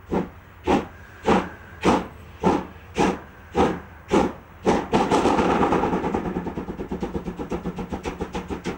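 Steam locomotive working hard, its exhaust chuffing in loud, slow, evenly spaced beats, a little under two a second. About five seconds in, the separate beats give way to a continuous hissing roar that pulses rapidly.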